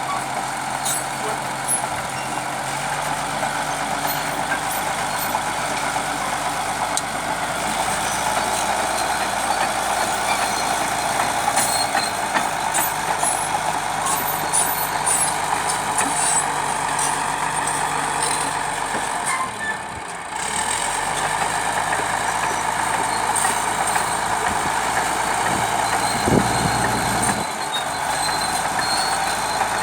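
Bulldozer's diesel engine running steadily at work, a continuous heavy drone, dipping briefly about twenty seconds in.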